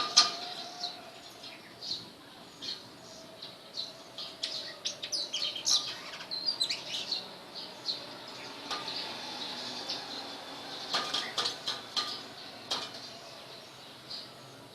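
Small bird chirping in short, repeated high calls, with two bursts of quick sharp clicks, one around the middle and one near the end.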